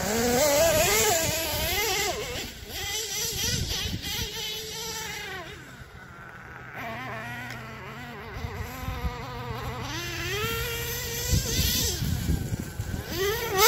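Redcat Earthquake 3.5 nitro RC truck's small two-stroke glow engine buzzing at high pitch, revving up and falling back again and again as the truck is driven hard. It grows fainter around the middle as the truck moves off and comes back louder near the end.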